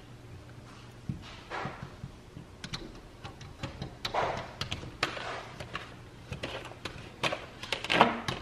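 Alaskan malamute pawing, licking and nosing at a glass door: scattered taps and knocks on the glass with short rubbing and snuffling noises. The loudest cluster comes near the end.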